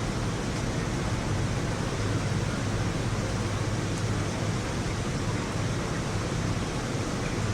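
Steady heavy rain during a thunderstorm: an even, unbroken hiss with no thunderclap.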